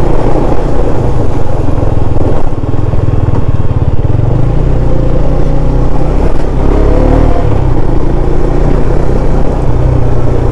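KTM Duke 390's single-cylinder engine running as the motorcycle is ridden along, loud and steady, its pitch shifting a little mid-way as the throttle changes.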